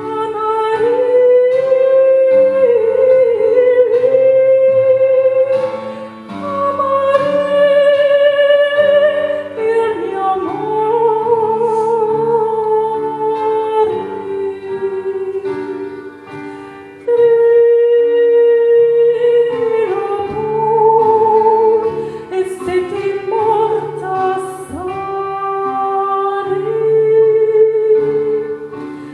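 Lyric, opera-style singing: a high voice holding long notes with vibrato over sustained instrumental accompaniment, pausing briefly between phrases.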